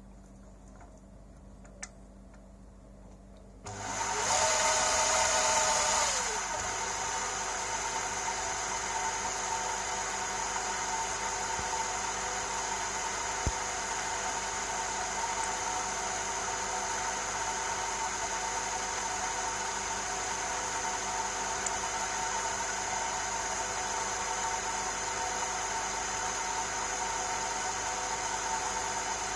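A big Chinese lathe's motor and spindle starting up about four seconds in, with a whine that rises, holds briefly and drops back over the first couple of seconds, then running on as a steady hum.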